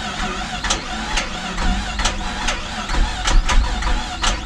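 Starter motor cranking a 2009 Cadillac CTS's engine off a jump pack without it catching, with sharp clicks about twice a second and a low rumble building through the middle: the car is a non-runner that will not start.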